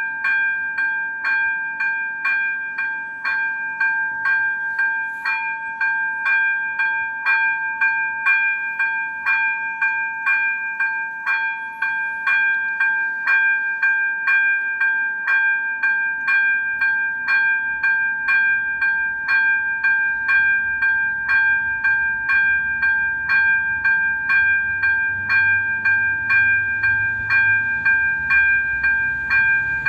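Level-crossing warning bell ringing steadily at about two strikes a second with a bright, bell-like tone. Over the second half, a low rumble of the approaching RegioSpider diesel railcar builds underneath it.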